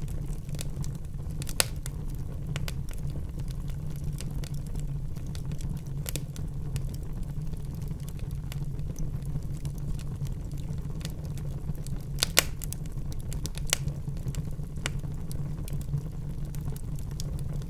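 Barbecue grill fire crackling, with scattered sharp pops over a steady low rumble; the loudest pops come about a second and a half in and about twelve seconds in.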